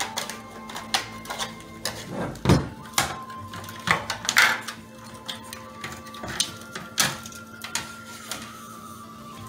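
Irregular clicks and knocks of the plastic and metal parts of an Intel NUC9 mini-PC case being handled and taken apart, a few louder knocks among them, over soft background music.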